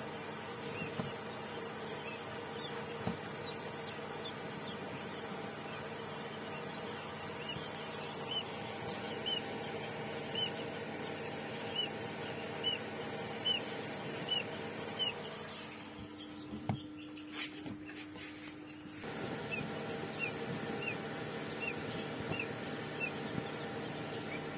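Newly hatched quail chicks peeping: single short, high peeps about once a second, stopping for a few seconds past the middle and then starting again. A steady machine hum runs underneath, from the incubator.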